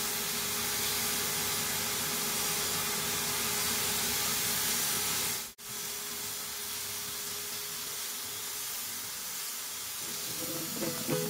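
Bosch low-pressure (HVLP) paint sprayer running: its turbine blows air continuously through the hose, and the spray gun hisses steadily as it sprays paint, with a constant whine underneath. The hiss cuts out for an instant about halfway, then carries on.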